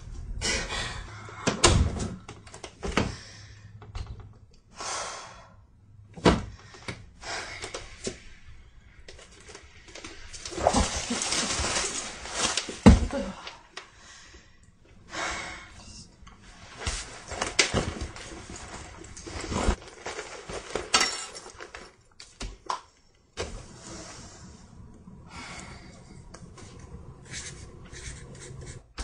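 A string of handling noises: rustling from a plastic bag being handled, with knocks and thuds in between.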